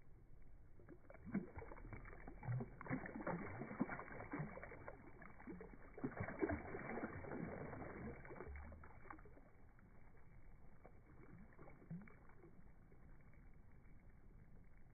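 Faint, muffled water sloshing with scattered soft knocks and clicks, all dull with no high end. It is busier for the first eight seconds or so, then quieter.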